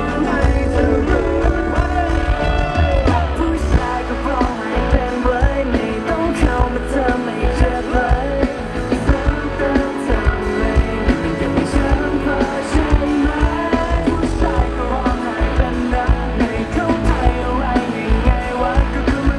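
Loud live pop-rock song: male voices singing over electric guitar, bass and drums, with a steady driving beat.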